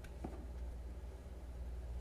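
Two light clicks near the start, a sharp one and then a duller one, from a balisong copy being handled, over a steady low hum.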